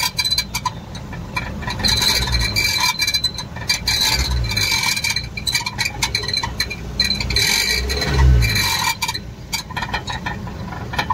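Suzuki Baleno's exhaust silencer rattling and clinking metallically against a metal strip under the body, with a high, ringing chink. Three times the engine surges and falls back, and the rattle comes with it. The strip was bent up by pothole roads so that it touches the vibrating silencer.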